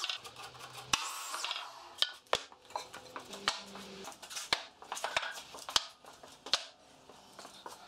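Cut lengths of 2x4 lumber being set down and stacked on a concrete floor: a run of sharp, irregular wooden knocks and clatters. A power saw's whine sounds briefly in the first second.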